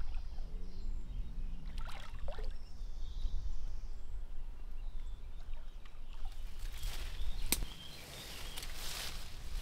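Ducks splashing and paddling as they bathe in canal water, over a steady low rumble, with a single sharp click about three-quarters of the way through.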